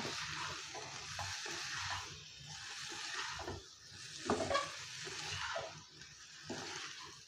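Spatula stirring and scraping boiled baby potatoes and vegetables through onion masala in a non-stick kadai, in repeated uneven strokes over a steady sizzle of frying.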